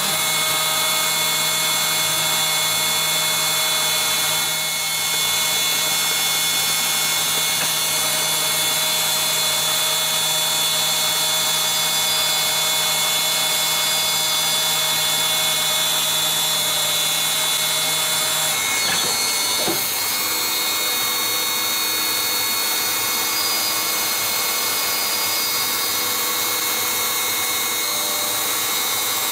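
CNC lathe running a turning job: a steady multi-tone whine over a high hiss. A little over halfway through, the whine shifts to a different set of tones.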